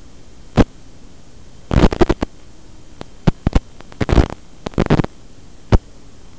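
Steady hiss broken by about a dozen irregular sharp crackles and pops, some in quick clusters: static on the audio of an analog FPV drone video feed.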